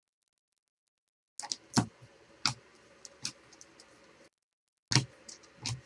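Stack of trading cards being flipped through by hand: a handful of separate sharp clicks and snaps of card edges. The sound drops out to dead silence at the start and again briefly in the middle.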